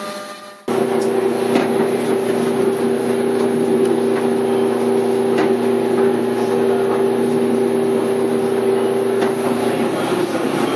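CNC milling machine: the endmill's cutting sound fades out within the first second, then a steady machine hum with two constant low tones and a hiss, and a few faint clicks.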